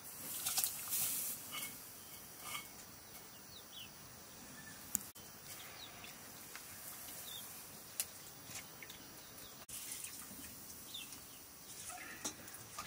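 Hands mixing a wet mixture in a metal bowl, with a few sharp clicks and several faint high chirps.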